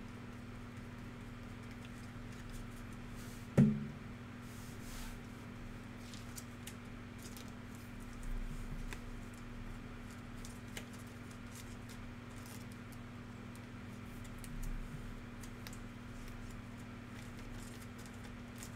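Trading card packs and cards being handled on a table: faint rustles and ticks over a steady low hum, with one sharp knock about three and a half seconds in.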